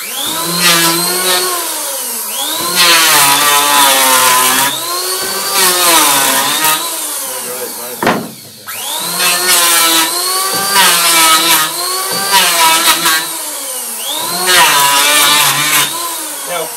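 Hand-held power tool shaping a wooden hurley blank in about six long passes. Its motor pitch rises and sags over each pass as it bites into the wood, with a short break about halfway through.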